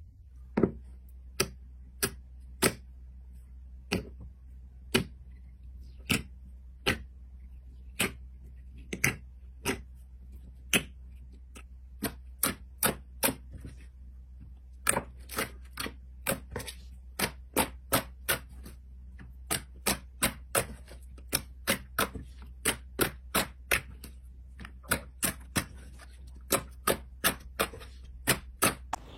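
A long series of sharp, separate clicks or taps at an uneven pace. They come about one a second at first, then faster and often in quick pairs or runs from about halfway through. A steady low hum runs under them.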